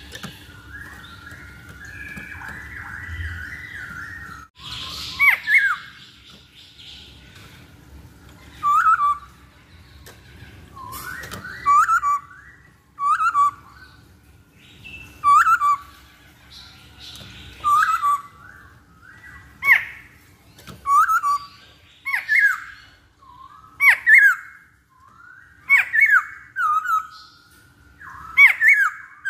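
Masked laughingthrush (poksay Hongkong) calling: softer chattering warbles for the first few seconds, then a run of loud, sharp calls about every two seconds, each dropping quickly in pitch.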